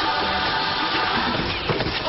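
Commercial's soundtrack music playing, with a beat.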